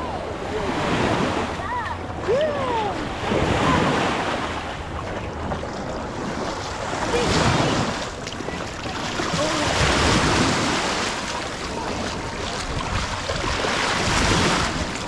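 Sea waves washing onto a sandy beach, the surf swelling and easing every few seconds, with wind buffeting the microphone. A few distant voices of people on the beach are heard, mostly in the first few seconds.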